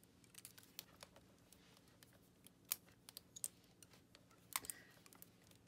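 Faint, irregular clicks and light snaps of fingers working small clear elastic bands into a plastic 18-inch doll's arm joint, to stiffen a loose, freely spinning limb. A few sharper ticks stand out about three and four and a half seconds in.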